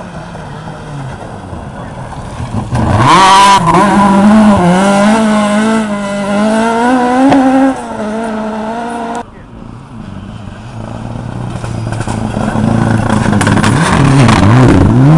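Rally cars at racing speed on a forest stage. One car's engine comes in hard about three seconds in, its note rising and falling with the throttle as it passes, then drops away suddenly. A second car's engine grows steadily louder, with revs rising and falling near the end.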